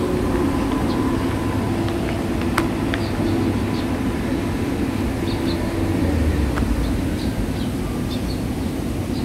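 Steady outdoor background hum and low rumble, like distant city traffic, with faint short high chirps now and then and a single sharp click about two and a half seconds in.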